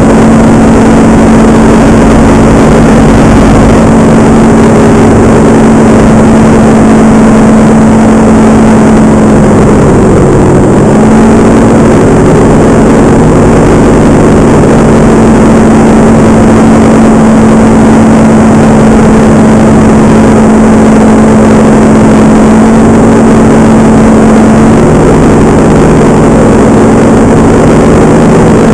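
Paramotor engine running steadily in flight. About ten seconds in its pitch drops briefly and comes back, as the throttle eases off and opens again.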